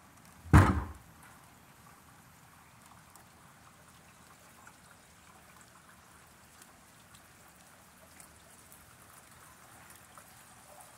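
A single loud bang or knock about half a second in, then light rain falling faintly and steadily, with scattered small drip ticks.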